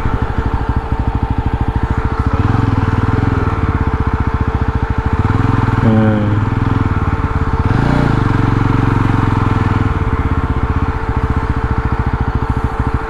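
Motorcycle engine running under way, its exhaust pulsing evenly as the bike cruises, with the revs rising and easing with the throttle a couple of times.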